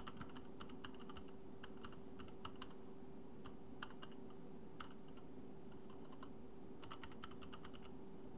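Computer keyboard being typed on, sharp key clicks coming in irregular short runs with pauses between them, over a faint steady hum.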